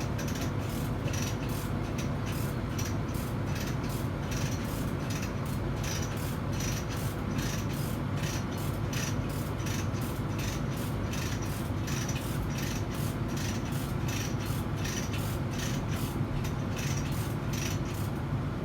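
Quick repeated rasping strokes of a hand tool, about two a second, over a steady low hum of running machinery.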